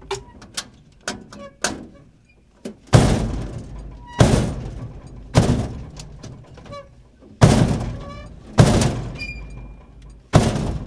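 Dumpster door slamming shut again and again: a few light clicks and knocks at first, then six heavy slams one to two seconds apart, each ringing out and dying away over about a second.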